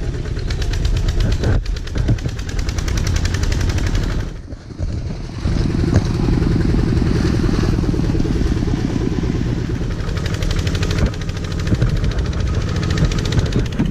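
Tractor engine running as it hauls a loaded trailer over a rough dirt track, with a rapid, even chugging. The sound drops away briefly about four seconds in, then comes back just as strong.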